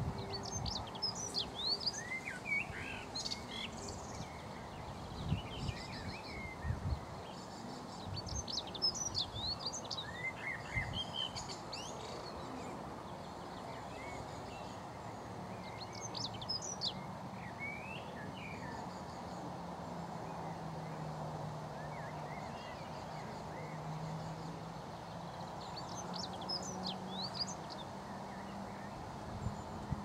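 Dunnock singing: short, fast, high warbling phrases repeated about five times with pauses of several seconds between them, over steady background noise.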